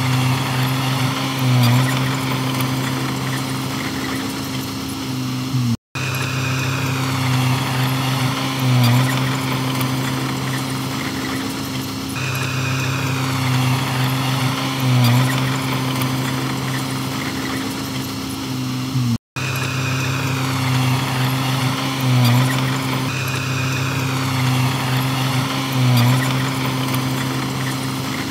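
Heavy diesel earthmoving machinery running steadily, its engine note swelling briefly every few seconds as it works under load. The sound cuts out for an instant twice.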